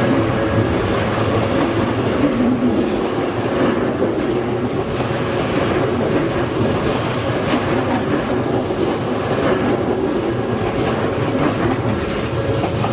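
Odakyu Line electric train passing: loud, steady running noise of steel wheels on the rails, with a few brief high wheel squeals.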